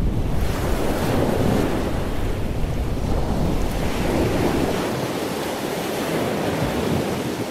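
Sea surf washing against rocks, with wind blowing: a steady, even rush of noise.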